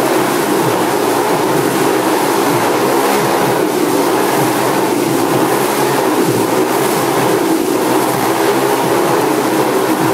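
Motorcycle engines running and revving continuously as the riders circle inside a steel mesh globe of death, the pitch wavering up and down without a break.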